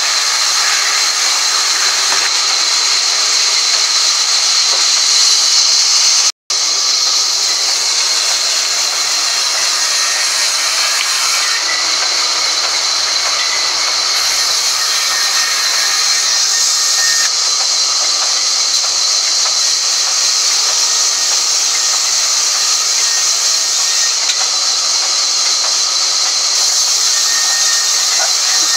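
Sawmill band saw running as a crooked log is pushed through it and ripped into planks: a loud, steady, high hiss of blade through wood. The sound drops out for an instant about six seconds in.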